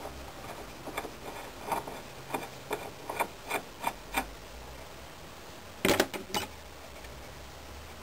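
Short scraping strokes of a thin steel hand tool on a cast silver pendant held against a wooden bench pin, about two strokes a second, with a louder clatter about six seconds in.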